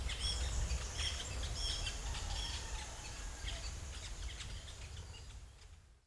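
Many small birds chirping over a low steady rumble, fading out near the end.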